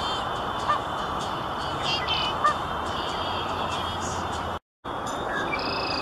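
Short, scattered bird calls over a steady outdoor background hiss, with the sound cutting out for a moment about three-quarters of the way through.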